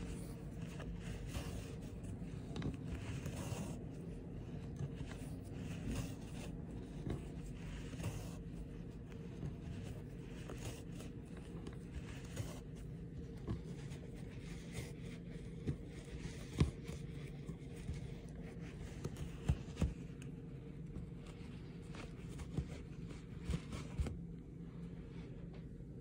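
A steel needle and yarn are drawn through the foundation threads of an antique Turkish Oushak carpet during hand reweaving, making faint scratchy rubbing and scraping with a few sharp ticks. A steady low hum runs underneath.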